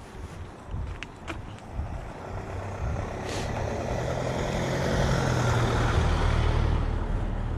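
A motor vehicle driving past on the road, with a low engine hum and tyre noise that grow over a few seconds, are loudest about five to six seconds in, then begin to fade.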